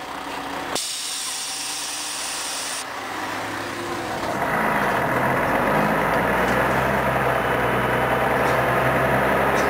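Scania CN113CLL city bus heard from inside the cabin: a hiss of compressed air for about two seconds as the doors work, then the diesel engine pulls the bus away from the stop, getting louder about four seconds in and running steadily.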